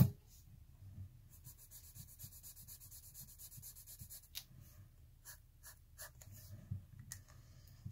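Sharpie fine point marker scratching on paper, faint: a run of quick back-and-forth strokes colouring a swatch, then a few separate short strokes drawing lines. A sharp click comes right at the start.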